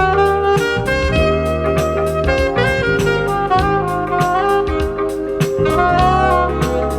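Smooth jazz playing from a vinyl record on a turntable with an Ortofon A90 cartridge: a saxophone melody over a steady bass line and drums.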